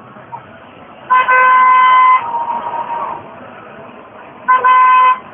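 Two loud horn blasts over crowd noise. The first, about a second in, lasts about a second and is followed by a fainter, lower tone. The second, near the end, is shorter.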